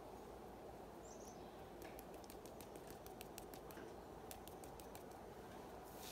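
Faint, irregular light ticks and taps from spattering paint off a flat paintbrush onto paper.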